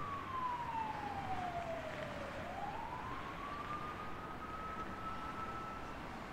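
Emergency vehicle siren wailing slowly: a single tone falls for about two and a half seconds, rises again and holds high, over a faint background hiss.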